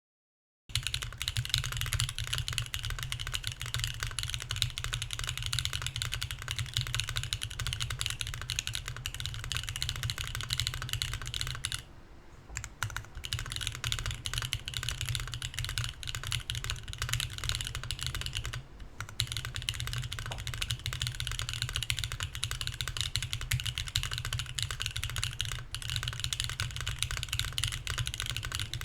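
Fast, continuous typing on a Mercury65 mechanical keyboard with BSUN Anya switches, an aluminium plate, no foam and GMK keycaps. The typing starts about a second in and pauses briefly twice, near the middle and about two-thirds of the way through.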